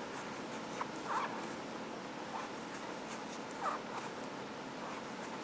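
Crochet hook and yarn working single crochet stitches: faint short rubbing sounds about once a second over a steady low hiss.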